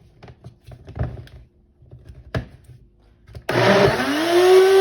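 Countertop blender switched on to blend a thick avocado mixture: a few light clicks and knocks of handling, then about three and a half seconds in the motor starts suddenly, its whine rising in pitch as it spins up.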